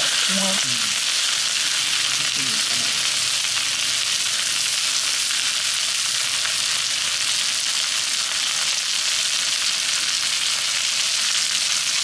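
Chicken steak frying on a hot iron plate: a steady sizzle of fat and juices.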